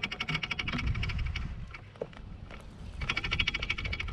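Fishing reel clicking rapidly and evenly in two spells, stopping for about two seconds in the middle, over a low wind rumble.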